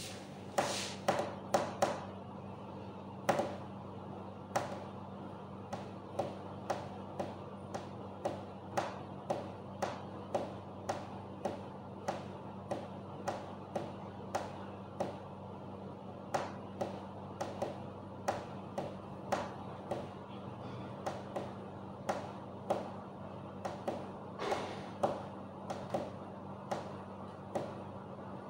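Kitchen utensils tapping and clinking against a glass mixing bowl, a wooden spoon as spices go in and then a wire whisk stirring a yogurt marinade. The sharp taps come about one to two a second over a steady low hum.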